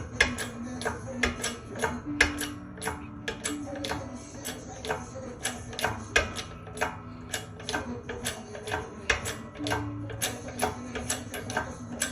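Rapid metal-on-metal hammer blows, about three a second, driving a Toyota Tacoma wheel hub out of its mount.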